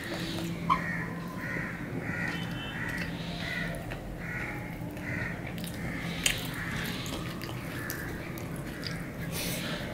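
Crows cawing over and over at an even pace, about one caw every two-thirds of a second, with two sharp clicks, one about a second in and one after six seconds.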